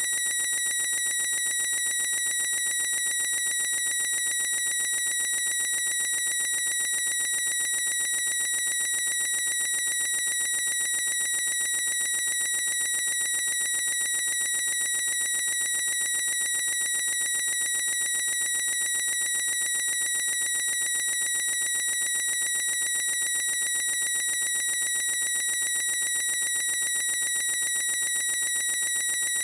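A boy's high-pitched squeal, drawn out into one unbroken tone that never changes pitch, with a fine rapid flutter.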